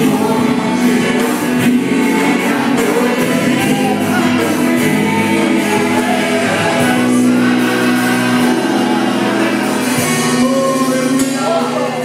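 Gospel worship song performed by a church worship group: several voices singing together over instrumental accompaniment, holding long notes.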